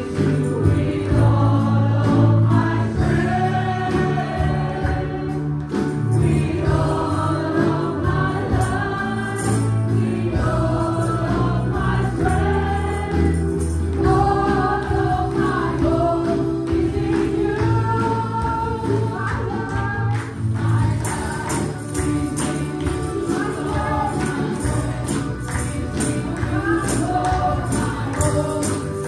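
Live gospel praise song: women singing together into microphones over instrumental backing with a steady beat, and hand-held ribbon tambourines shaken in time.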